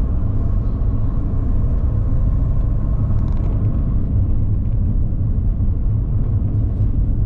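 Jeep Renegade with its 2.0 turbo-diesel engine driving at about 50 km/h: a steady low rumble of engine and road noise.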